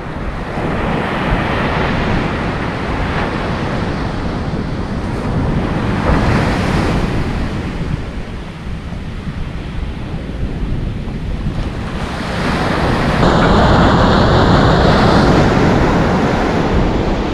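Ocean surf breaking and washing up a sandy beach, coming in surges that swell and ease, the loudest one near the end, with wind buffeting the microphone.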